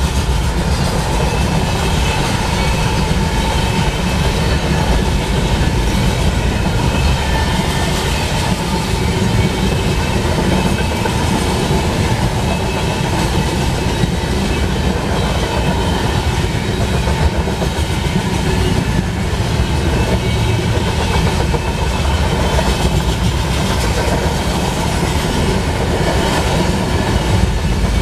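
Freight cars of a mixed manifest train, covered hoppers and boxcars, rolling past at speed: a steady, loud rumble and rattle of steel wheels on the rails.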